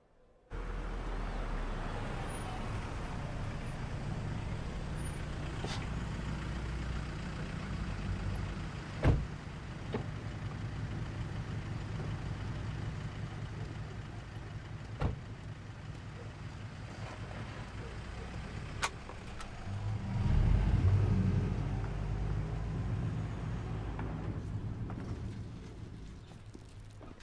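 A motor vehicle running steadily with a low rumble, broken by a few sharp knocks, and swelling louder about twenty seconds in before fading near the end.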